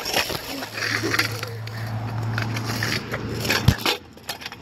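Bicycle riding over rough asphalt and grit: a crunching, scraping rolling noise with rubbing on the phone's microphone. A sharp knock comes about three and a half seconds in.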